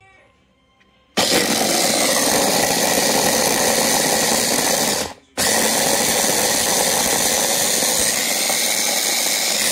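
Coobinox hand blender on its chopper bowl attachment, running and mincing ginger. The motor starts about a second in, stops briefly a little after halfway, then runs again.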